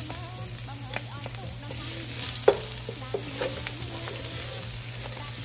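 Minced garlic sizzling in hot oil in an aluminium wok while a wooden spatula stirs it, scraping and knocking against the wok. One sharper knock comes about two and a half seconds in.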